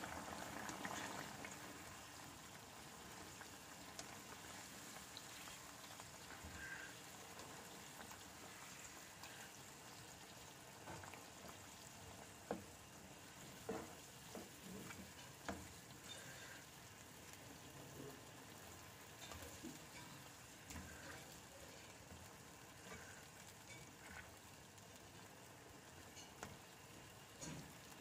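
Chicken curry sizzling and bubbling faintly in a nonstick frying pan, with a spatula stirring and now and then knocking against the pan, mostly in the middle stretch.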